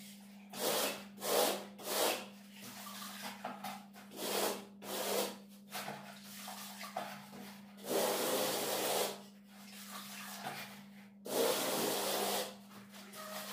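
A hand float rubbing and scraping across a plastered wall as bark-beetle (короед) decorative plaster is worked, in irregular short strokes with two longer strokes of over a second in the second half. A faint steady hum lies underneath.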